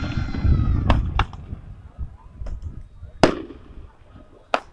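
Aerial fireworks shells bursting. The low echo of a big bang trails through the first second, then come sharp cracks about a second in, a loud bang a little past three seconds, and a quick run of cracks near the end.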